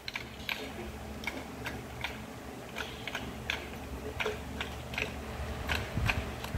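Light ticking clicks, about two to three a second and slightly uneven, over a faint low hum.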